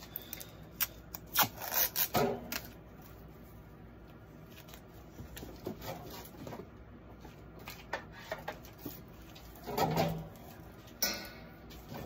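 Short rubbing and scraping sounds with a few clicks as a roll of tape is handled at a workbench. The strokes are closely spaced in the first couple of seconds, sparse after that, with louder scrapes near the end.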